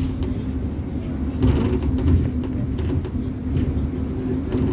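City bus engine and road noise heard from inside the moving bus: a steady low drone with a constant hum, swelling slightly about one and a half seconds in.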